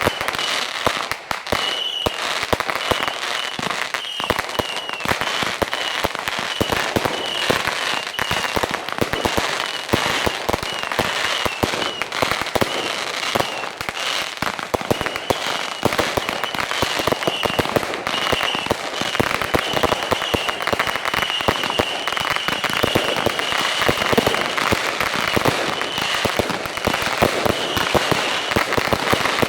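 Fireworks display going off in a dense, continuous barrage of rapid cracks and bangs, with a high thin whistling tone coming and going throughout.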